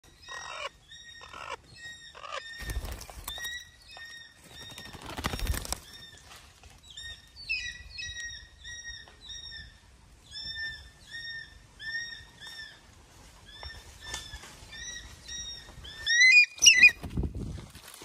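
Small birds giving short, repeated calls several times a second, with a few thuds of wing beats mixed in. Near the end comes a louder flurry of frantic calls and wing flapping as the owl beats its wings at the nest hole.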